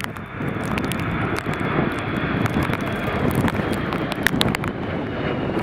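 Airbus A320 jet passing low overhead with its gear down: a steady loud jet-engine roar with a faint high whine over it. Gusty wind knocks on the microphone throughout.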